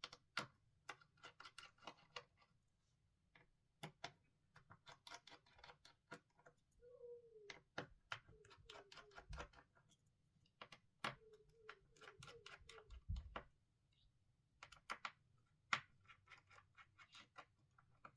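Faint, irregular small clicks and ticks of a precision screwdriver and tweezers working the bottom screws out of a Samsung S22 Ultra's midframe, some in quick runs, with a few short squeaks as the bit turns.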